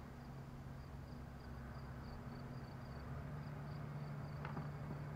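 A tractor engine running steadily at a distance while baling hay, its pitch rising a little about three seconds in, with insects chirping in an even, fast pulse above it.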